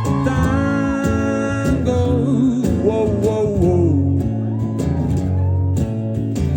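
Live band music, loud: guitar and drums keep a steady beat under a wavering lead melody in an instrumental passage between sung lines.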